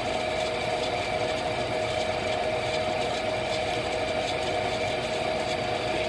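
Lennox gas furnace running with its burners firing: a steady hum and rush with one constant mid-pitched tone that does not change.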